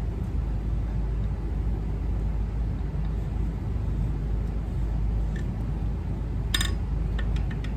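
Steady low rumble in the background, with a single sharp metallic clink about six and a half seconds in and a few light ticks near the end as steel transmission parts, a shift fork guide bar among them, are handled.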